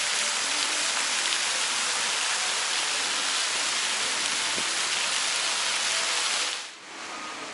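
Park fountain jets splashing into their pool: a steady hiss of falling water that drops away sharply near the end.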